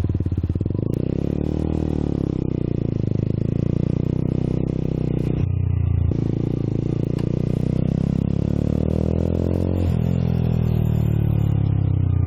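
Motorcycle engine running while riding, loud and steady. The pitch changes briefly about halfway, shifts suddenly near the end, then falls steadily as the bike slows.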